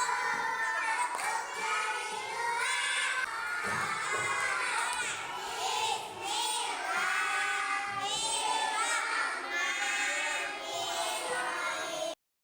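A crowd of children shouting and cheering, many high voices overlapping and rising and falling; it cuts off suddenly just before the end.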